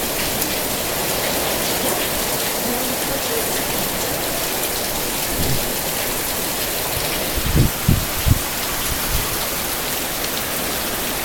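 Heavy rain pouring down in a steady hiss, with a few short low thumps past the middle.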